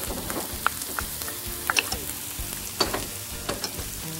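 Chopped onion, garlic and peppers sizzling in oil in a frying pan, with a wooden spoon stirring and scraping that adds scattered sharp clicks.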